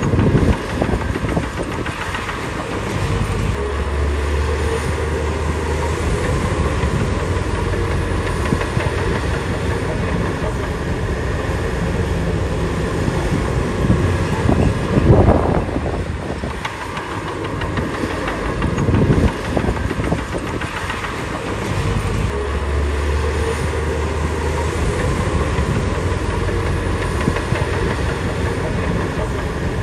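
Shantui DH17B2 crawler bulldozer's diesel engine running under load, with louder surges about halfway through and again a little later.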